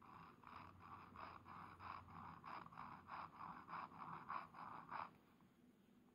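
Faint scratching of a Bungubox x Synchronicity glass pen's nib on a paper ink swatch card, in quick back-and-forth zigzag strokes of about four a second, stopping about five seconds in.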